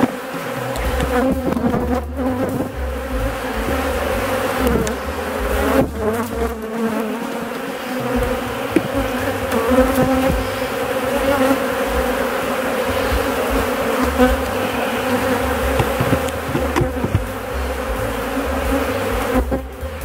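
Honeybees buzzing in a steady hum over an open hive, with a low rumble underneath and a few light knocks.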